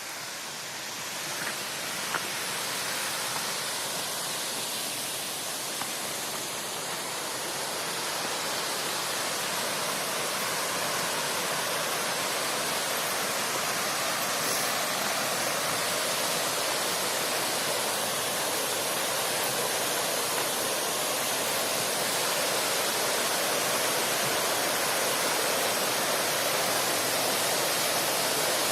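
Steady rush of falling water from the Maiden's Braids mountain waterfall, growing slowly louder.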